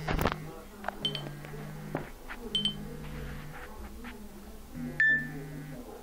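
Nokia N93i phone playing short previews of its alert tones as its tone list is scrolled: several brief steady tones, some opening with a high beep, and a sharper, louder high tone about five seconds in.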